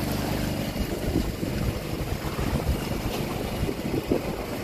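Fishing boat's engine running steadily, with wind buffeting the microphone and the wash of the sea.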